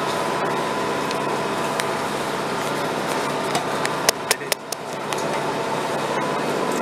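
Steady running noise inside the carriage of a Northern Class 150 diesel multiple unit on the move: the hum of its underfloor diesel engine and the rumble of the wheels on the track. A quick run of four or five sharp clicks comes a little past halfway.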